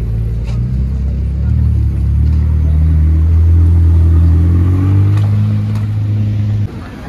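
McLaren 600LT's twin-turbo V8 at low revs, pulling away with a gradual rise in pitch and loudness. The engine sound cuts off suddenly near the end.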